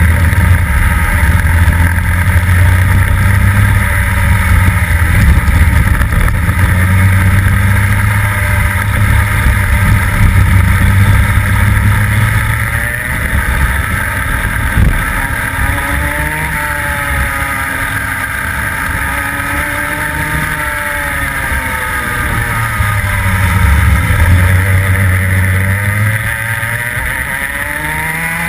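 Rotax two-stroke kart engine at racing speed, heard from on board the kart. It holds high revs for about the first twelve seconds, then its pitch falls and climbs again several times as the kart slows for corners and accelerates out.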